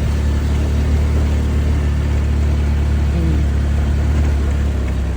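Vehicle driving up a rough, bumpy road: a steady, loud, low engine and road rumble under an even hiss.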